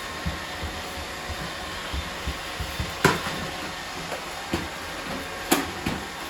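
Robot vacuum running with a steady hiss, with several sharp clicks and knocks, the loudest about three seconds in.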